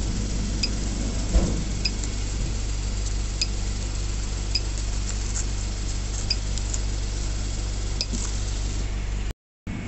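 Car wash code-entry keypad beeping as its number keys are pressed: about six short, high beeps spaced a second or more apart, over a steady low hum. A dull thump comes about a second and a half in.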